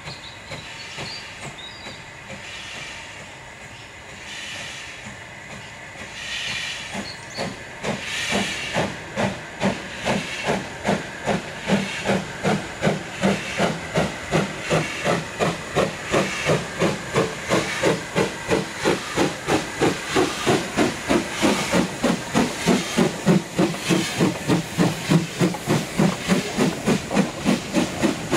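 LMS Ivatt Class 2MT 2-6-2 tank engine 41312 working a goods train away from a stand. Its exhaust beats start slow and faint, then quicken to about four a second and grow louder as it draws near and passes. Open cylinder drain cocks hiss under the chuffing.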